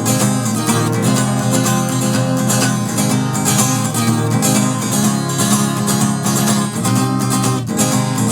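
Acoustic guitar strummed in steady chords, an instrumental passage without singing.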